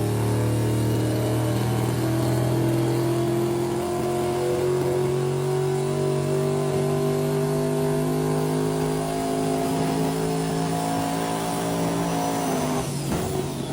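Turbocharged golf cart engine running hard under load, its pitch climbing slowly, with a thin high whine rising alongside it. Near the end the engine note falls away suddenly as it comes off power.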